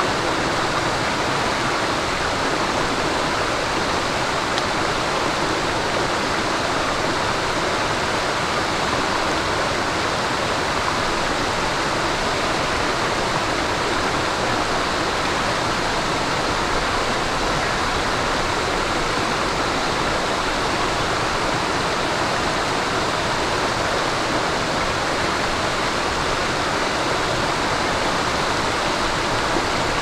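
Mountain stream babbling over rocks: a steady, even rush of water.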